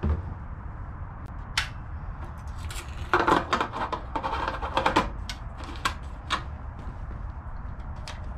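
Handling noises on a Predator 212cc small engine: a thump as a plastic gas can is set down on pavement, then a burst of clicks and rattles for about two seconds as hands work the fuel tank cap and engine controls, followed by a few single clicks.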